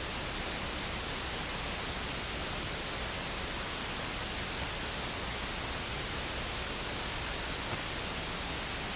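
Steady, even static hiss with no other sound in it: the audio of an SJCAM SJ7 Star action camera that fails to record sound. The hiss cuts off suddenly at the very end.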